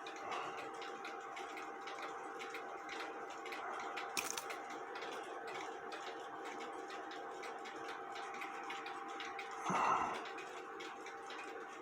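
Clock ticking steadily and quickly, faint, over a steady low hum. There is a sharp click about four seconds in and a brief rustle near ten seconds.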